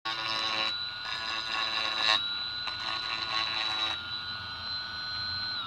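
Small brushless DC motor, run from a computer power supply, spinning a mounted bit at high speed with a steady high-pitched whine. A rough scratchy noise sits over the whine for the first four seconds. At the very end the whine starts to fall in pitch as the motor slows.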